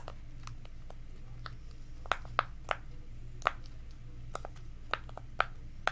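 Silicone pop-it fidget toy bubbles being pressed through, giving a string of about fifteen sharp little pops at an uneven pace.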